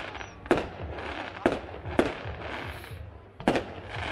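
Aerial fireworks bursting: four sharp bangs at irregular intervals, each trailing off in echo.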